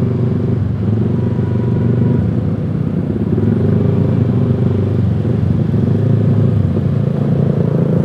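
Yamaha R15 V3's 155 cc single-cylinder engine running steadily at low revs while the motorcycle cruises slowly in third gear.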